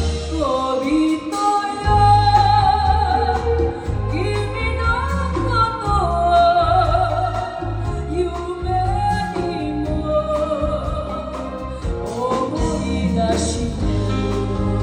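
Music from a Vietnamese song medley: a wavering melodic lead over a steady bass beat, the bass dropping out briefly near the start and again near the end.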